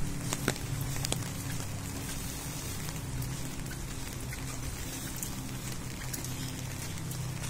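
Steady rain falling, with many individual drops ticking close by over a low steady hum.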